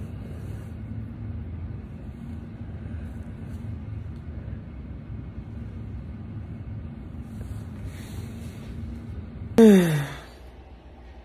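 A steady low hum with no one speaking. Near the end comes a brief loud sound that slides down in pitch and stops within about half a second.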